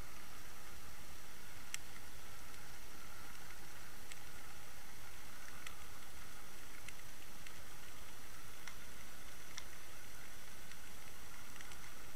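Underwater sound picked up by a submerged Water Wolf underwater camera: a steady hiss, with a sharp click every second or two.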